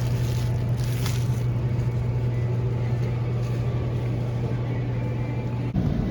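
A steady low hum over a background of noise. About six seconds in it cuts off abruptly and gives way to a different, rougher background noise.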